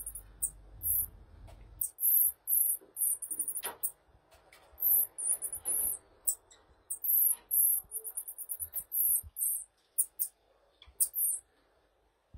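Pygmy marmosets calling: many short, very high-pitched trills and chirps in quick succession, stopping about a second before the end.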